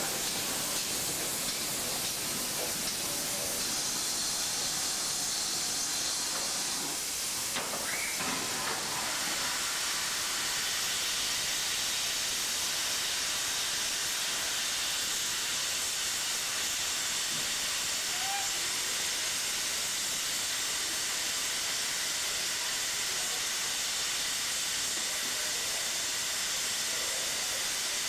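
A steam locomotive letting off steam in a steady hiss from low down around its cylinders, with no exhaust beats.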